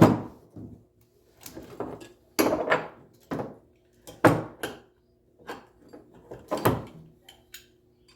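Irregular metal clanks and scrapes, about eight in all, of a VW Beetle's drum brake parts being handled and fitted as the brake shoes go back on.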